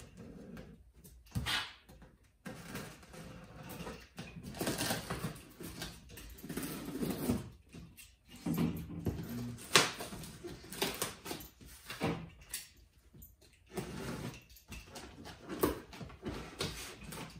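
Utility knife slicing through packing tape and cardboard along the seams of a large shipping box: irregular scraping strokes, with knocks and rustles as the box is handled.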